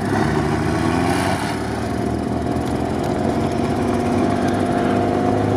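Off-road vehicle's engine running steadily at low speed over rough ground, heard from on top of the vehicle.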